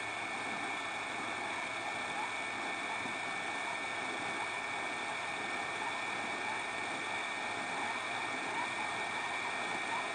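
WEP 858D hot-air rework station's fan and nozzle blowing hot air: a steady hiss with a constant high whine. The hot air is melting the solder to seat a surface-mount chip on the circuit board.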